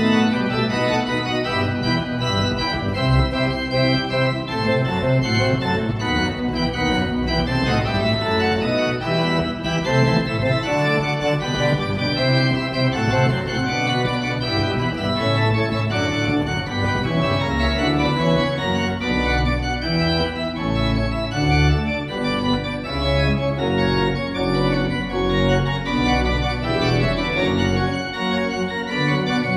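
Pipe organ playing a dense passage of many voices at once, with deep pedal bass notes strongest from about two-thirds of the way through.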